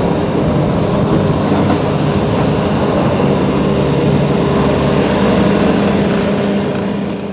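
2015 Bobcat T650 skid steer's diesel engine running steadily, a constant low drone under a dense mechanical rumble, starting to fade near the end.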